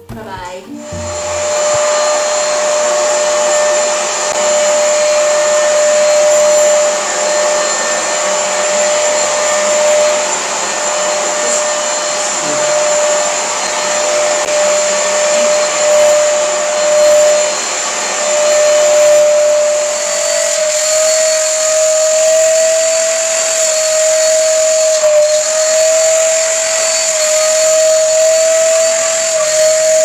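Corded 2-in-1 stick vacuum cleaner switched on about a second in and running steadily with a high motor whine and rushing air; the whine rises slightly in pitch about two-thirds of the way through as it is pushed over the floor and then used as a handheld.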